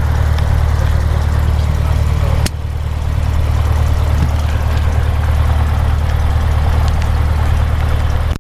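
Cessna 150's Continental O-200 four-cylinder engine idling with a steady low drone, heard from inside the cockpit. A brief click comes about two and a half seconds in.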